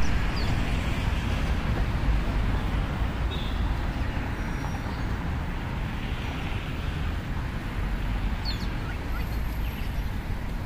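Wind buffeting the microphone, a steady low rumble and rushing noise, with a few faint short high chirps.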